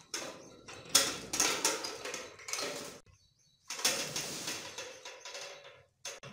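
Rustling and crinkling of a plastic sack of mustard seed as it is hooked onto a hanging dial spring scale and lifted, in a run of short scrapes and knocks. The noise breaks off for a moment about three seconds in, then goes on.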